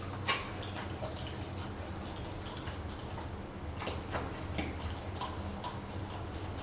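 A puppy licking and chewing at a rubber Kong toy stuffed with mashed sweet potato, making irregular wet smacking clicks, over a steady low hum.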